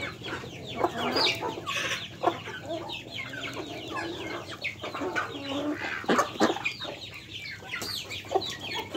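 A flock of chickens clucking steadily with many short overlapping calls, among ducks and chickens pecking at scattered rice on the ground.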